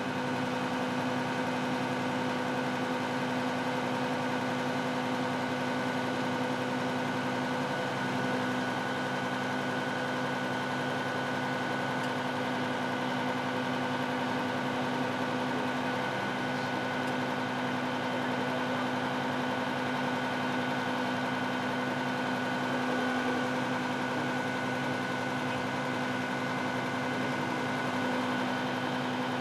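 Engine idling steadily, a constant unchanging drone with a steady hum.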